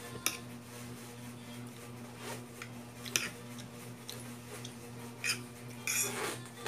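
Metal fork clinking and scraping on a plate while noodles are twirled and eaten. There are a few sharp clicks and a longer scrape near the end, over a steady low hum.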